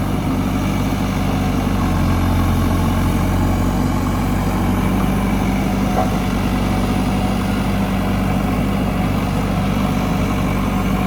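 Bulldozer's diesel engine running steadily with a low, even hum, swelling slightly a couple of seconds in.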